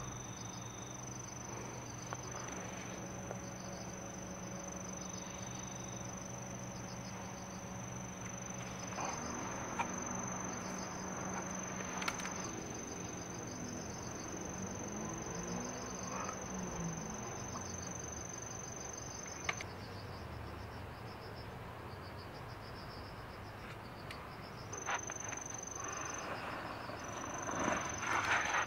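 An insect trilling steadily in one high continuous tone, which drops out for a few seconds past the middle and then resumes. Near the end a louder rush of noise comes in as the tinder bundle catches and burns in open flame.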